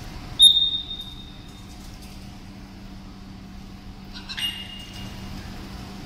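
Two sharp clinks, each ringing out briefly with a fading tone. The first and loudest comes about half a second in, and a softer one about four seconds later, over a faint steady hum.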